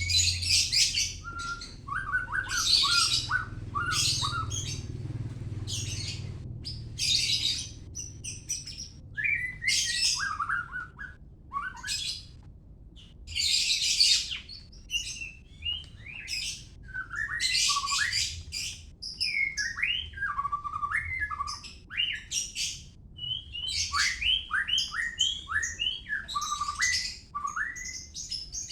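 White-rumped shama (Medan-type murai batu) singing a varied song. Scratchy high bursts alternate with short clear whistled phrases that slide up and down, over and over.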